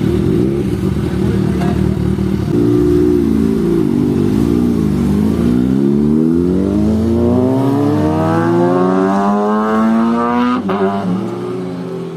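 Sport motorcycle engine running steadily, then revved: the pitch wavers up and down, then climbs steadily for several seconds before dropping off suddenly near the end.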